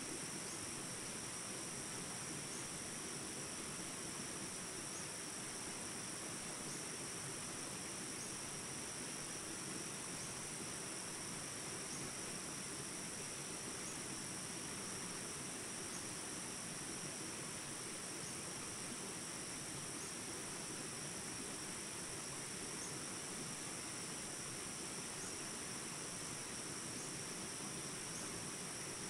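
Steady chorus of insects, two unbroken high-pitched trills at different pitches, over a soft even hiss.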